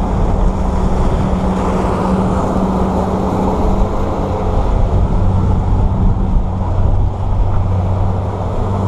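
Boat's outboard motor running at speed: a steady engine hum under the rush of wind and water from the hull and wake.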